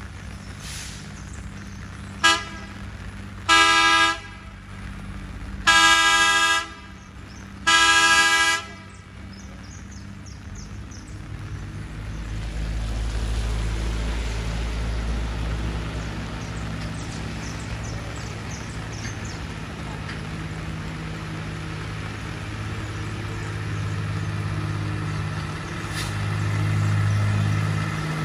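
Rail maintenance line car sounding its horn: a short toot, then three longer single-tone blasts. Its engine then grows louder as it approaches and passes, over a steady low engine hum and the hiss of rain.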